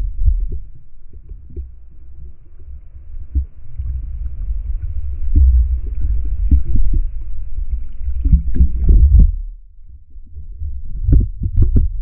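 Muffled underwater rumble and water movement picked up by a camera in a waterproof housing, with many dull knocks and thuds, clustered about eight seconds in and again near the end.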